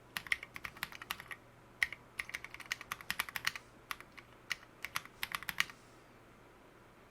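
Typing on lubed Gateron Merlot mechanical switches with SA keycaps on an OLKB Planck ortholinear keyboard. The keystrokes come in quick bursts with short pauses and stop near the end.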